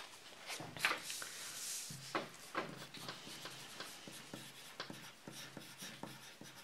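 Paper rustling as a fresh sheet is put in place, then a pencil writing on the paper in a run of short strokes.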